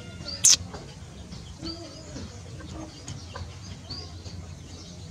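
Birds chirping in short high calls, with a few lower calls, over steady background noise. A single sharp knock about half a second in is the loudest sound.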